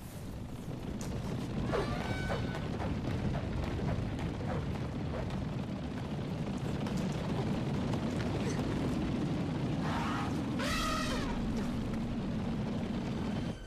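A deep, steady rumble that builds over the first two seconds and cuts off suddenly near the end, with brief high gliding squeals about two seconds in and again near the end.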